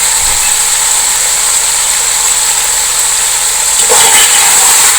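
Chicken and boiled chickpeas frying in hot oil in a cooking pot: a steady, loud sizzle that gets slightly louder about four seconds in.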